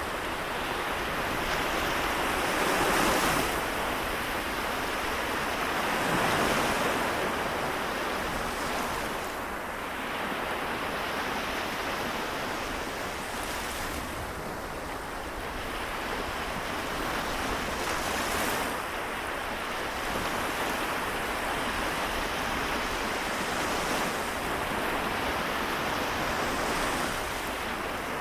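Seto Inland Sea waves washing in, a continuous surf with single waves swelling and breaking every few seconds, the loudest near the start.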